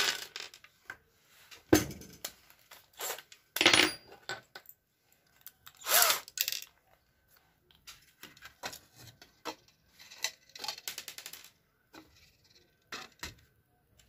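Screws and plastic-and-metal casing parts clinking and clacking as the gas heater's control-board housing is closed and screwed shut: irregular sharp knocks and clinks, the loudest about 2, 4 and 6 seconds in.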